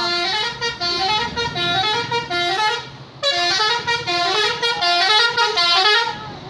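Bus telolet horn playing a multi-note tune, its tones stepping up and down in pitch, in two phrases with a short break about three seconds in.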